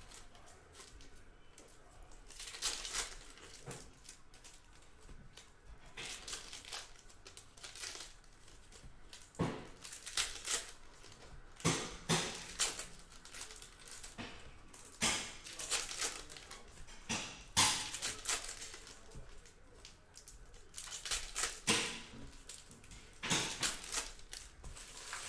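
Plastic trading-card packaging crinkled and torn open by hand, in short irregular bursts of crackling every second or two.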